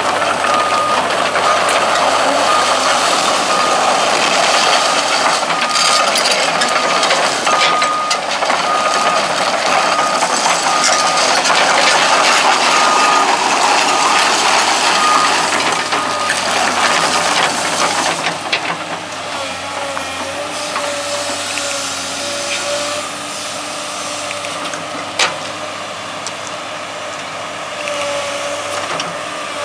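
Komatsu PC200LC-8 crawler excavator tracking over gravel with its six-cylinder diesel running, its travel alarm beeping steadily a little under once a second. About 18 s in, the tracking and beeping stop, the machine runs quieter, and a steady hydraulic whine comes in as the boom and bucket move.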